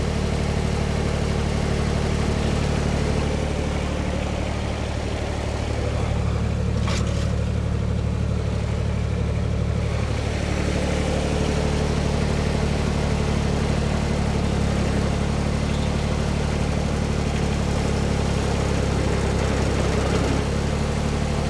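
Farm tractor engine running at a steady speed while it works to lift one side of a trailer off the ground.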